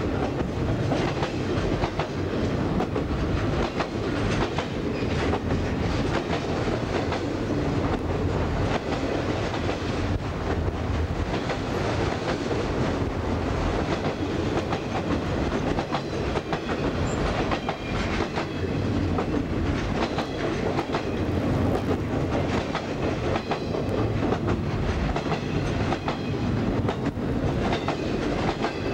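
Railroad flatcars of a long freight train rolling past close by: a steady rumble of steel wheels on rail with a constant run of clicks and clacks from the wheels on the track.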